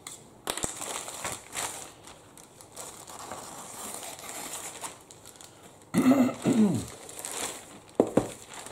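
Plastic courier mailer bag crinkling and rustling as it is handled and turned over, and a cardboard box comes out of it. A brief, louder sound with a falling pitch comes about six seconds in.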